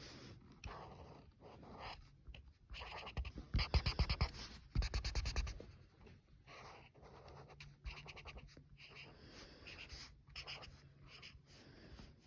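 Colouring tool scratching on paper in repeated strokes. A louder run of rapid back-and-forth scribbling comes from about three to six seconds in.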